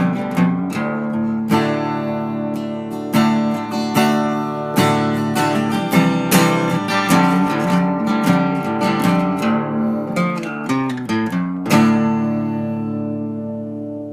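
Background music: acoustic guitar playing strummed chords, the last chord ringing out and fading near the end.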